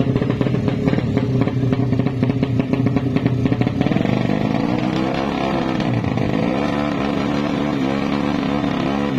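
Race-tuned Yamaha MX 200cc-class drag bike's engine revving at the start line before launch. It runs in quick, rough blips for about the first four seconds, then settles to a steadier rev that rises and dips a little.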